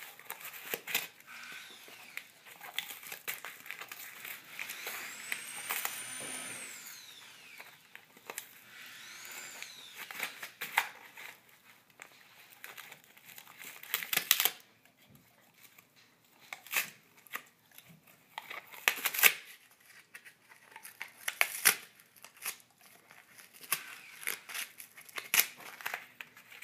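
A dog chewing and tearing corrugated cardboard: irregular crunching, crinkling and ripping, with the loudest rips in the second half.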